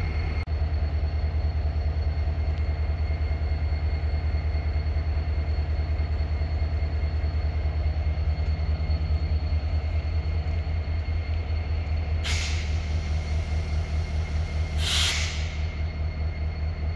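GEC-Alsthom 6FE electric locomotive's machinery running with a steady low hum and a fast, even throb. Two short hisses of compressed air cut in, about twelve and fifteen seconds in, the second longer.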